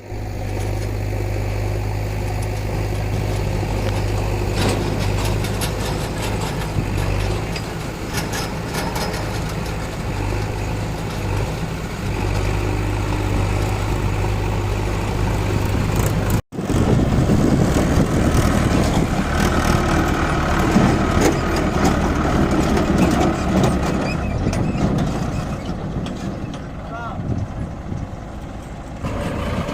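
Mahindra 555 tractor's diesel engine running with a steady low beat; about halfway through the sound breaks off for an instant and returns rougher and noisier.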